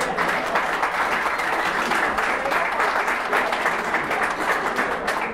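An audience applauding: many hands clapping together in a dense, steady run.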